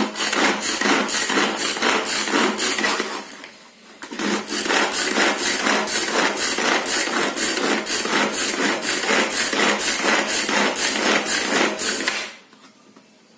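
Pull-string manual food chopper worked with rapid, repeated cord pulls, its blades whirring round inside the plastic bowl and mincing onion. There is a brief pause about three seconds in, then the pulls go on until shortly before the end.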